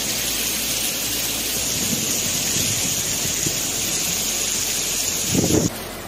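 Heavy rain pouring down with a steady hiss, and a brief low rumble near the end. The sound cuts off suddenly just before the end to a quieter rush of floodwater.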